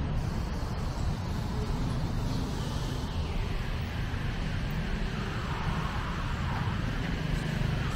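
City street traffic: a steady low rumble of engines and tyres, with vehicles passing in the second half.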